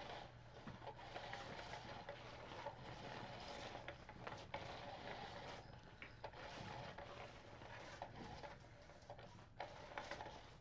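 Small motor of a Petlinks automated feather chaser cat toy whirring steadily under its fabric cover as it sweeps the feather wand around, with a few light clicks.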